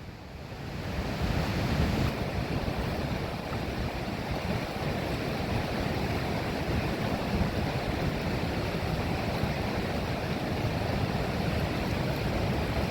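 Fast-running floodwater rushing and churning, with wind buffeting the microphone. The sound swells over the first second or two, then holds steady.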